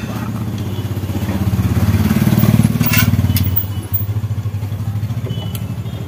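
A motorcycle engine running nearby, rising briefly in speed and loudness about two seconds in, then settling back to a steady idle.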